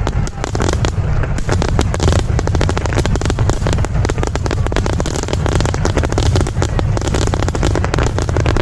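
Aerial fireworks going off in a rapid barrage: a dense run of sharp bursts and crackles over a continuous deep rumble of booms.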